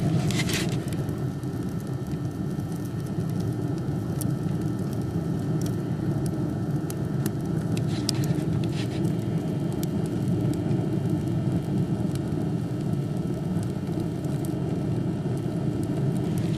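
Sawdust-fired furnace burning hard with a strong draft: a steady low rush of fire, with a few sharp clicks scattered through it.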